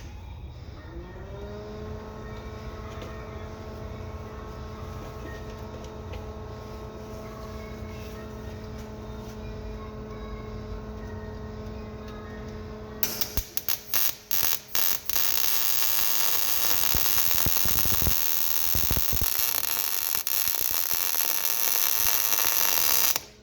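A steady machine hum, then a MIG welding arc: a few short stuttering starts, then a continuous crackling sizzle like sizzling bacon for about eight seconds that cuts off suddenly near the end.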